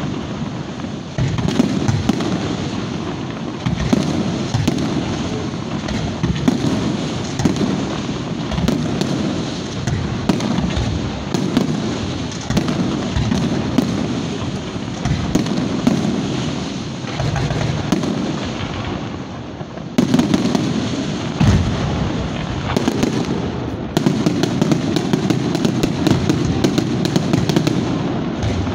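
Fireworks going off close by: a dense, continuous barrage of bangs and crackling over a low rumble, getting louder about twenty seconds in and again a few seconds later.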